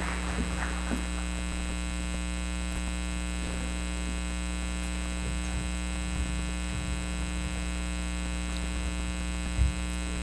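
Steady electrical mains hum in the sound system, a stack of even tones with no change. The last of the applause fades out in the first second, and a single low thump comes near the end.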